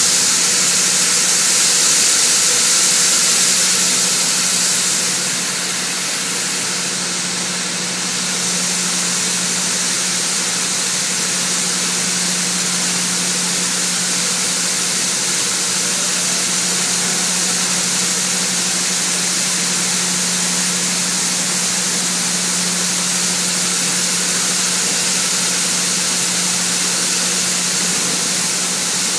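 Product pouring from an overhead load-out spout into an empty hopper-bottom grain trailer, making a steady rushing hiss over a steady low machinery hum. The hiss is brighter and louder for the first five seconds or so, then settles.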